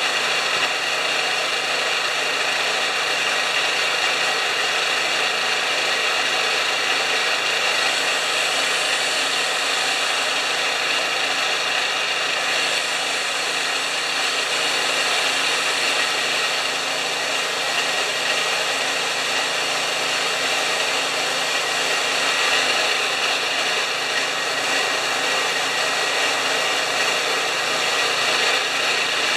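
Homelite 3000-watt portable generator's engine running steadily at constant speed on a carburetor whose broken throttle shaft has been replaced by a makeshift throttle butterfly.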